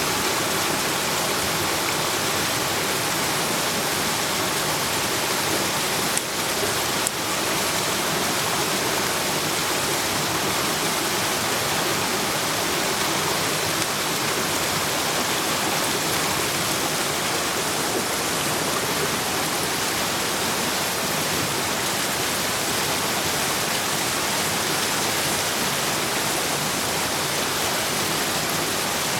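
Steady hiss of meat and bamboo shoots sizzling over a wood campfire, with two brief clicks about six and seven seconds in.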